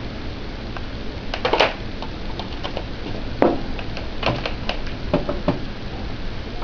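Handling noise: scattered clicks and knocks of objects being picked up and set down, a few in a cluster about a second and a half in and several more in the second half.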